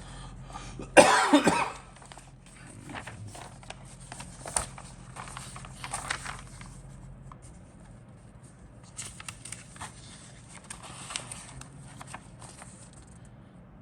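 A person coughs once, loudly, about a second in, followed by scattered light clicks and rustles from handling the plastic parts of a scale model aircraft kit.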